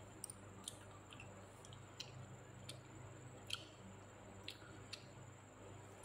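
Faint, scattered wet mouth clicks and lip smacks of someone eating with her hands and licking her fingers, over a low steady hum.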